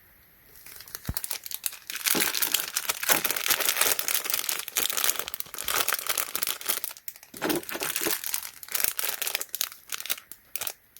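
Solder wick packaging crinkling and rustling as it is handled, a dense irregular crackle that starts about half a second in and gets much louder from about two seconds, with short lulls around seven seconds and near the end.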